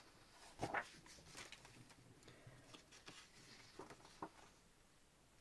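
Faint rustling and a few soft taps of sheets of patterned paper being handled and turned over, the loudest about two thirds of a second in.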